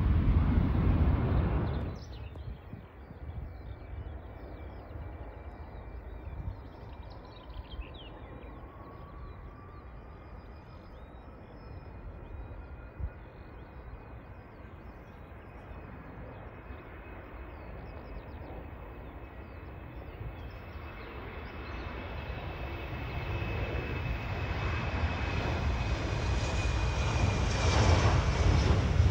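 Airliner engines at an airport: a steady high whine with a slowly rising tone, growing louder over the last several seconds as the aircraft comes closer. A loud rush cuts off about two seconds in.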